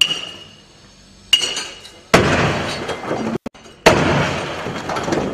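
A 1.5-ton steel pendulum striking the wheeled shock-table platform under a half-scale stone-masonry house in mud mortar, a crude simulated earthquake shock. There are four sharp impacts, the first with a metallic ring, and each is followed by a rattling clatter of loose stones that dies away.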